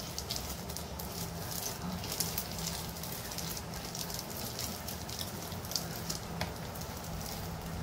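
Homemade slime mixed with styrofoam beads being squeezed and kneaded by hand, giving a continuous run of small crackles and pops. The maker thinks she put in too much activator, so the slime is stiff and tears instead of stretching.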